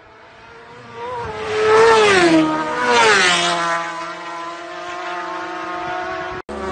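Road-racing motorcycles passing at high speed and high revs. The engine note grows louder, then its pitch drops sharply as each bike goes by: two passes about a second apart, roughly two and three seconds in. A fading engine note follows and cuts off abruptly near the end.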